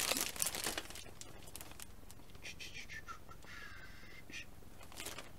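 Clear plastic bags around model kit sprues crinkling and rustling as they are handled, loudest at the start, with a harsher rasping stretch in the middle.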